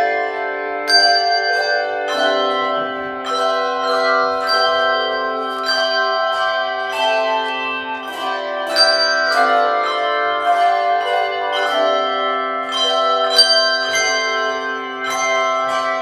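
Handbell ensemble playing a tune: struck bell notes ring on and overlap into held chords, with a new note or chord about twice a second.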